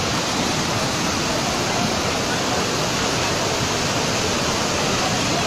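Floodwater of a swollen river rushing, a steady loud noise of turbulent water.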